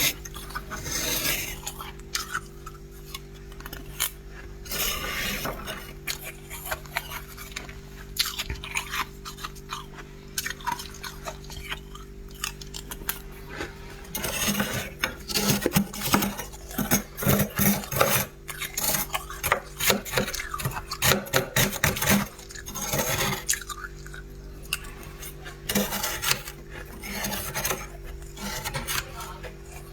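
Freezer frost being scraped and crunched in a long run of scratchy, crackling strokes, busiest in the middle stretch, over a steady low hum.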